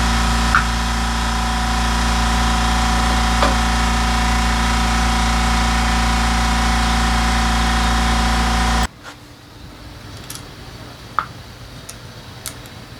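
Daelim Citi Ace 100's 100 cc single-cylinder engine idling steadily, then cutting off suddenly about nine seconds in. After that come a few light clicks and taps.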